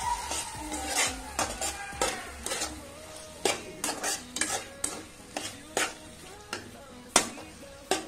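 Slotted steel spatula stirring thick, sauce-coated diced vegetables in a non-stick kadai. It gives irregular scrapes and taps against the pan, roughly one or two a second.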